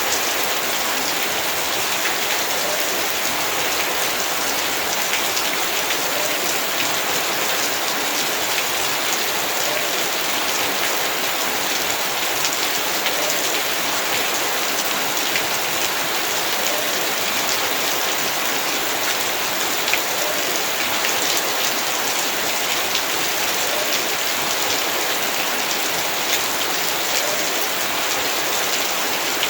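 Heavy rain falling steadily, a dense even hiss with many small drop ticks on surfaces.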